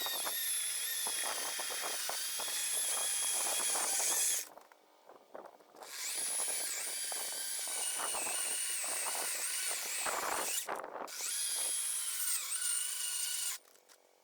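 GreenWorks 40-volt cordless electric chainsaw running and cutting firewood, a high motor whine that dips in pitch as the chain bites into the wood. It runs in three spells, stopping for over a second about four seconds in, briefly about ten seconds in, and again near the end.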